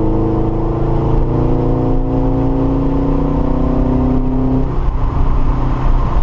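Subaru BRZ's 2.0-litre flat-four heard from inside the cabin, pulling under throttle with its pitch rising slowly. A little over four seconds in the engine note drops away as the throttle closes, leaving a steady rush of road and tyre noise on the wet track.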